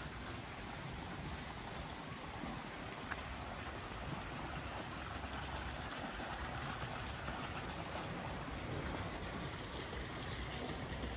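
Steady outdoor garden ambience: an even rushing noise with a low rumble underneath and a few faint ticks.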